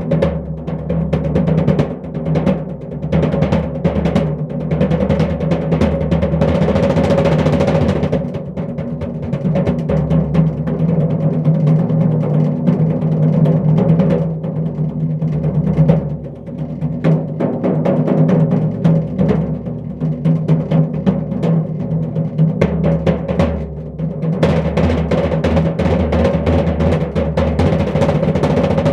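Fast, continuous drum roll played with bare hands on a floor tom and snare drum: dense rapid strikes over the drums' steady low ring. The roll eases briefly about sixteen seconds in, then picks back up.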